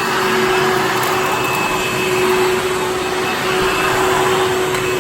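Hoover Fold Away upright vacuum cleaner (model U5175-900) running steadily: a constant motor noise with a steady hum and a thin high whine. Its brush roll had been seized and has been freed by hand, and it now turns.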